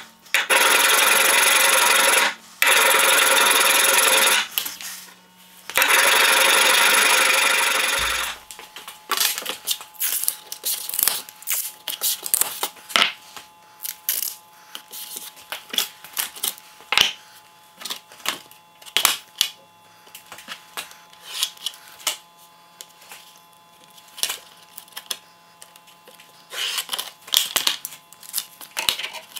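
Loud, steady metal-on-metal scraping as the steel knife blank is worked, in three long runs with short breaks, stopping about eight seconds in. After that come light clicks, rustles and tears of masking tape being pulled off the roll and laid down, with taps of a steel ruler on a plywood board.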